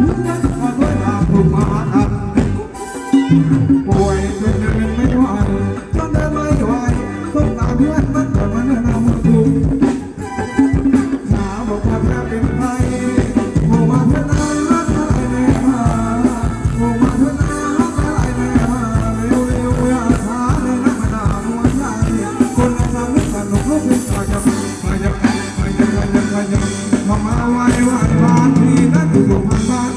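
Live Thai ramwong dance band music with a singer, a steady beat and shaken percussion. The music dips briefly about three seconds in and again about ten seconds in.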